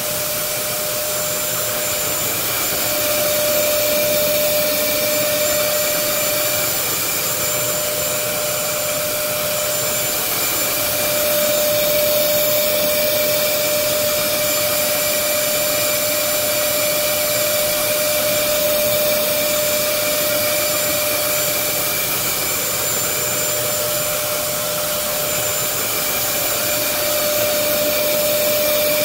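Upright vacuum cleaner running steadily: a continuous rush of air under a constant high motor whine, swelling slightly now and then.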